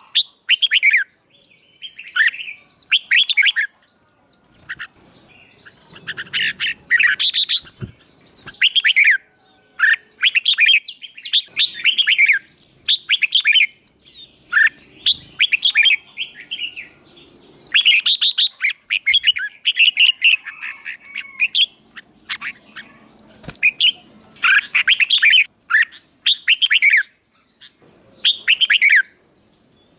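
A songbird singing loud, rapid, chattering phrases of fast chirps and trills, in bursts every second or two with brief pauses. This is a lively competition-style song of the kind used to rouse a newly caught bird.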